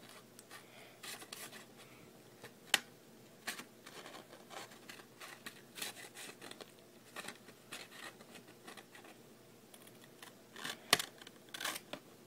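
Light, irregular clicks, taps and rubs of a clear plastic phone case and its paper insert being handled. There is a sharp click about three seconds in and a cluster of louder ones near the end.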